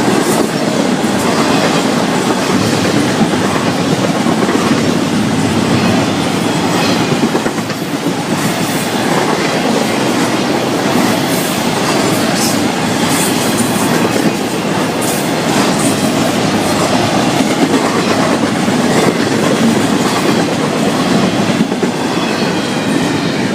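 Florida East Coast Railway freight cars rolling past at speed: a steady rumble of steel wheels on rail, with an irregular clickety-clack of wheel clicks.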